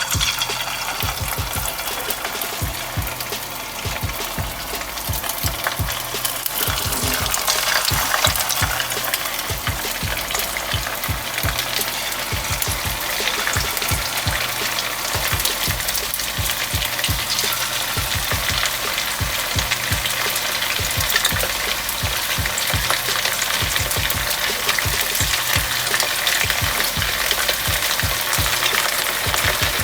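Marinated chicken pieces deep-frying in hot oil: a steady, dense sizzle and crackle.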